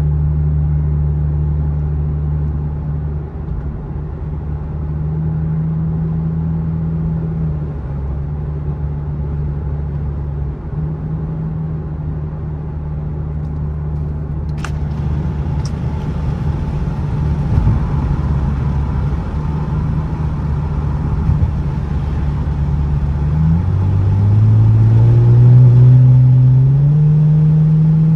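Lexus engine and aftermarket axle-back exhaust droning at a steady cruise, then rising in pitch as the car accelerates near the end.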